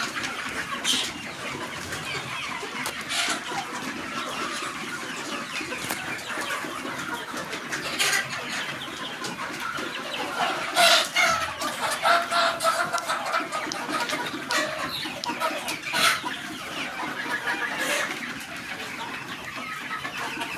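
A flock of desi chickens clucking and calling continuously, with several louder calls in the middle.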